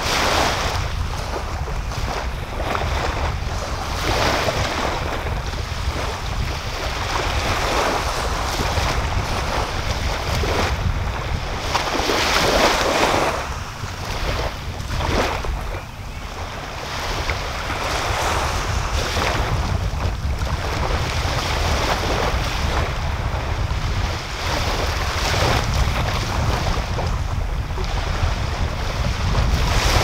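Small sea waves breaking and washing up a sandy beach, swelling and fading every few seconds, with wind rumbling on the microphone underneath.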